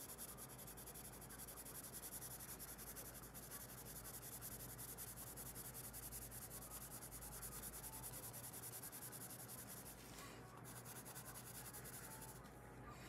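A coloured pencil scratching on paper in rapid back-and-forth shading strokes, faint. It eases off near the end.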